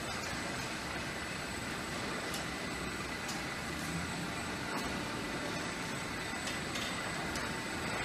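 Automatic feed-pushing robot running along the feed alley: a steady mechanical hum with a faint, steady high whine and a few scattered light clicks.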